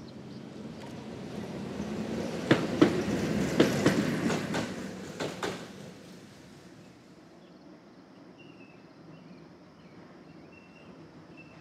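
1940s PCC streetcar rolling past, a rumble that builds and then fades, with a string of sharp clicks from its wheels over the track as it goes by.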